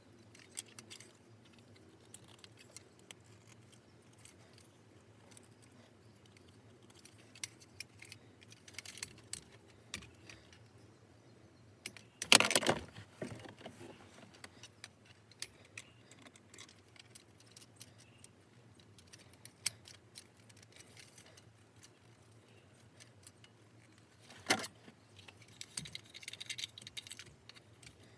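Plastic clicks and rattles of a rearview-mirror phone mount being handled and adjusted, its clamp and arms knocking together. The clicks are scattered, with a louder clatter about halfway through and another near the end.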